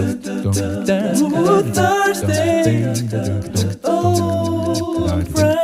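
Background music: a song with sung vocals over a bass line and a steady beat.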